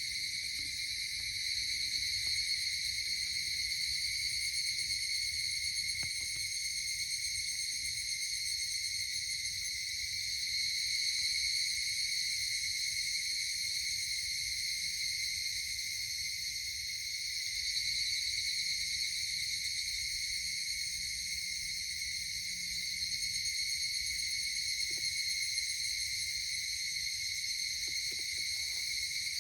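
A steady summer insect chorus: several insects trilling without a break, each at its own high pitch, with a faint low rumble beneath.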